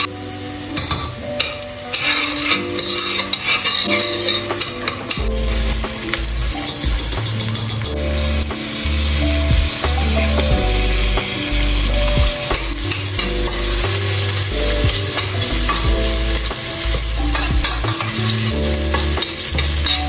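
Chopped onion and red lentils sizzling in a stainless steel pot as a metal spoon stirs them, with scrapes and small clinks on the pot. Background music with a bass line plays under it.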